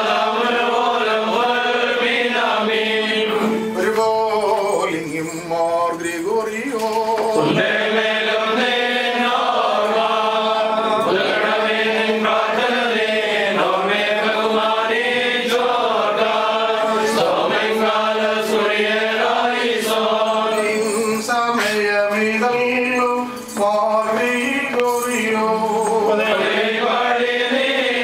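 A group of voices chanting a Malankara Orthodox liturgical hymn together, phrase after phrase, with short breaks between phrases.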